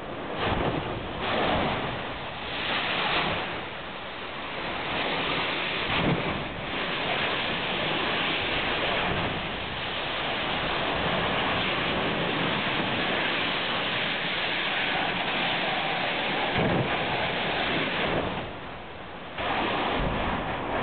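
Compressed gas cylinders exploding at a burning welding-gas facility: several booms and rumbles in the first few seconds and another later on, over a steady rushing noise.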